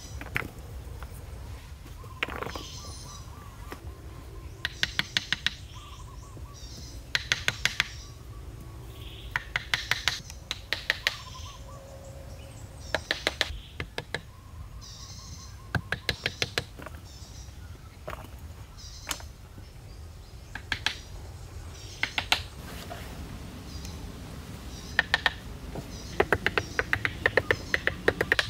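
Wooden log rounds being tapped down into a soil floor with a hammer: short quick runs of sharp wooden knocks, several strikes to a run, repeated again and again and packed closer near the end. Birds chirp faintly in the background.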